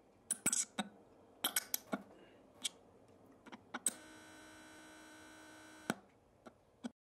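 Digital glitch sound effects for an animated logo intro: a scatter of sharp clicks and crackles, then a steady electronic buzz for about two seconds that cuts off with a click, followed by a few faint ticks.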